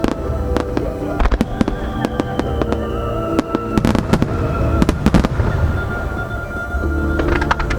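A starmine fireworks barrage: many shells bursting in quick clusters of sharp cracks and bangs over a continuous rumble, with music playing throughout.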